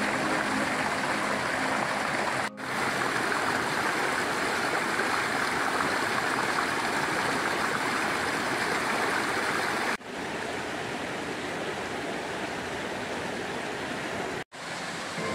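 Small rocky forest stream running over stones in a steady rush of water. The sound briefly cuts out about two and a half seconds in and again near the end, and drops to a softer level about ten seconds in.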